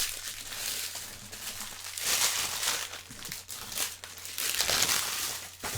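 Trading-card packaging crinkling and tearing as a Topps Chrome hobby box and its packs are opened, an irregular run of rustles and rips.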